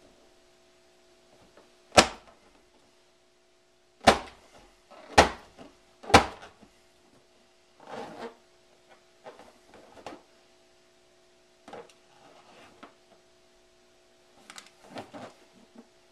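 Hands squeezing and slapping an inflated rubber balloon: four sharp, loud smacks in the first half, then softer rubbing and handling noises, over a faint steady hum.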